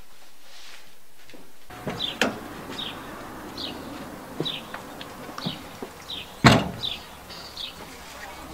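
Suzuki car door opened with a sharp click, then shut with a loud thump about six and a half seconds in. A bird calls throughout with a short high chirp, repeated about every three-quarters of a second.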